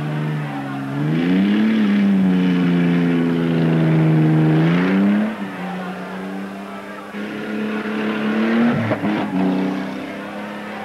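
Truck engine revving as the truck accelerates. The pitch climbs about a second in, holds, climbs again near five seconds and then drops, with another surge and a short break near nine seconds.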